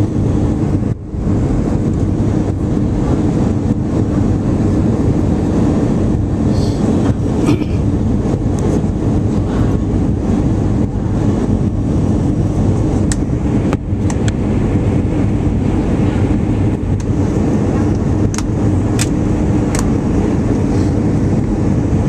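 Steady cabin noise of an Airbus A320 on approach, heard inside the cabin: engine and airflow noise, heaviest in the low end, with a few faint clicks in the second half.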